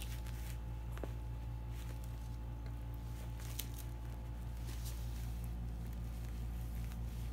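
Soft, irregular rustles and scratches of a cat pawing and clawing at a plush toy, over a steady low background hum.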